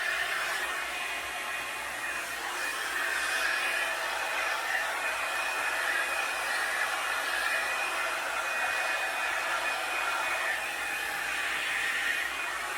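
Revlon One-Step hair dryer brush blowing steadily as it is worked through the hair: a constant rush of air with a thin, steady high whine.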